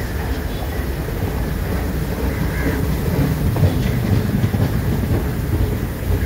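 Passenger train coaches rolling past, a steady rumble of steel wheels on the rails, a little louder midway.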